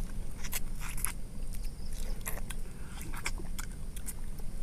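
Two people biting, sucking and chewing on raw lemon wedges: a scatter of short, irregular mouth clicks and crunches.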